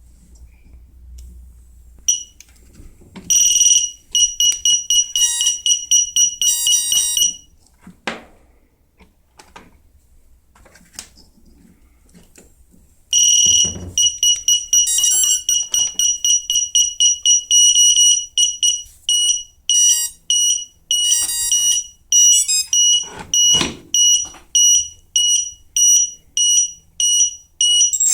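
Quadcopter ESC calibration beeps sounded through a brushless motor: a high, steady tone repeated in fast runs of beeps, spacing out to about two beeps a second near the end.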